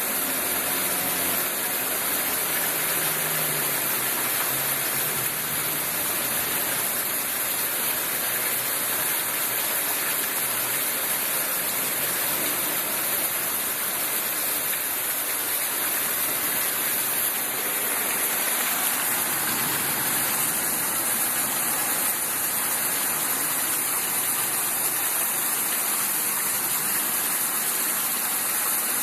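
Steady rush of heavy rain and flowing floodwater, even and unbroken throughout.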